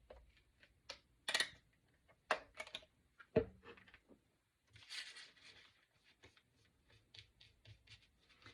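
Scattered small clicks, taps and rustles of painting supplies being handled and dabbed on a tabletop, with one louder knock about three and a half seconds in and a short rustle a little after.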